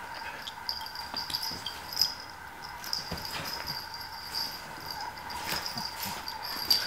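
A cat and a dog scuffling on a bed: paws and bodies rustling the bedding, with scattered soft thumps and two sharper knocks, about two seconds in and near the end. A steady, faint high-pitched whine runs underneath.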